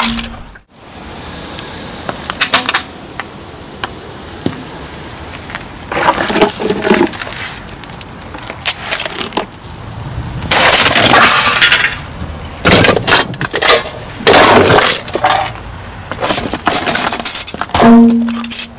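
Objects being crushed under a slowly rolling car tyre: a string of loud cracking, crunching and crumpling bursts as plastic and thin galvanized steel give way, with metallic clinks. The first several seconds hold only a few small cracks, and the heavier crushes come in separate bursts later on.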